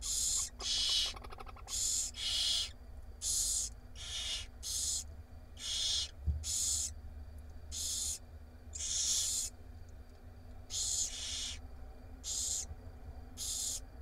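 Barn owls in a nest box giving raspy hissing calls, each about half a second long, repeated at irregular intervals roughly once a second, over a steady low hum; a soft thump about six seconds in.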